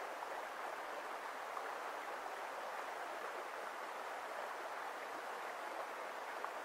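Flowing stream water making a steady, even rushing.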